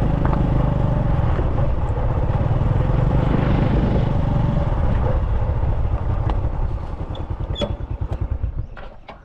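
Motorbike engine running while riding. In the last few seconds the engine slows to separate firing pulses and fades near the end, with a few sharp clicks.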